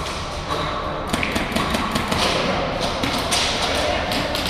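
Airsoft guns firing single semi-auto shots: irregular sharp snaps and thuds, several a second at times.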